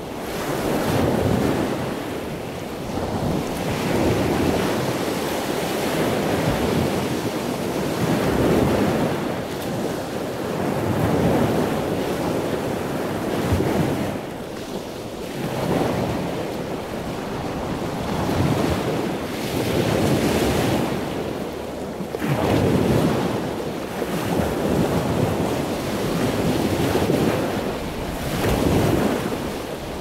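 Ocean surf washing onto a sandy beach, the waves swelling and easing every two to three seconds.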